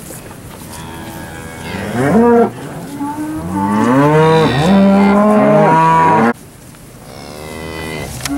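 Several cattle mooing, with long calls overlapping one another; the sound cuts off abruptly about six seconds in, and another moo begins near the end.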